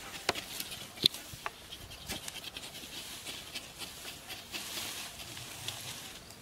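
Digging bars jabbing and scraping into soil and dry grass: a few sharp knocks in the first two seconds, with scratching and rustling throughout.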